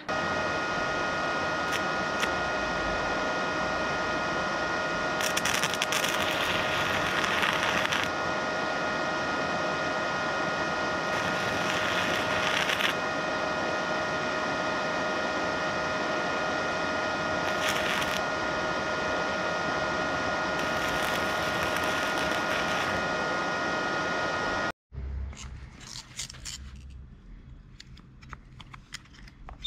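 Minleaf ZX7-250 IGBT inverter stick welder switched on and idling: its cooling fan runs with a steady high electrical whine, swelling into louder hissing a few times. It cuts off suddenly near the end, leaving only faint clicks.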